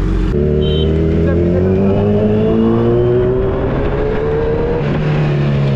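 Four-cylinder sport motorcycle engine pulling under acceleration, its pitch rising steadily for about four seconds. Near the end it drops to a lower, steady note.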